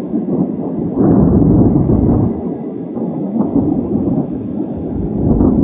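Thunder rumbling, jumping louder about a second in and swelling again near the end.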